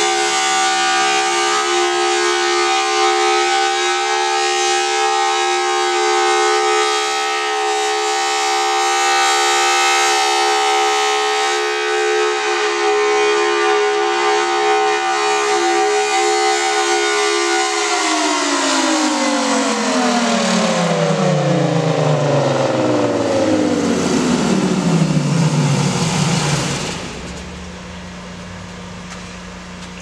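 Federal Signal Thunderbolt 1000T rotating outdoor warning siren sounding a steady multi-note tone, then winding down in a long falling glide as the alert ends. A low steady hum is left near the end.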